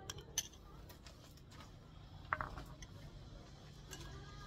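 Light clicks and knocks of tableware as a meal is eaten, with one brighter, briefly ringing clink a little past halfway.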